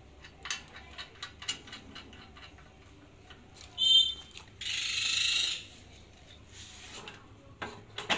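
Light metallic clinks and taps of parts being handled on a forklift mast, then a short high squeak, the loudest sound, followed by about a second of hiss, and a few more taps near the end.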